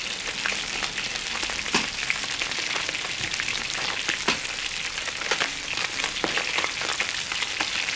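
Fish pieces frying in oil in a wok: a steady sizzling crackle with many small pops and a few sharper ones.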